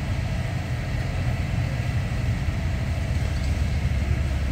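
Steady low rumble of fire apparatus engines running at a fire scene, with no pops or bangs.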